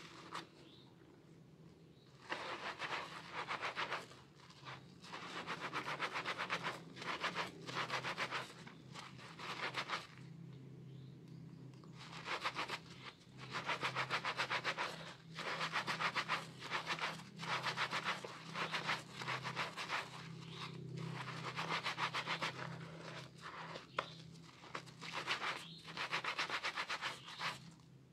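Soapy hands rubbing and squeezing a soaked bar of soap and a sponge in thick lather, making a fine, fast wet crackling. It comes in bouts of a few seconds with short pauses between, over a steady low hum.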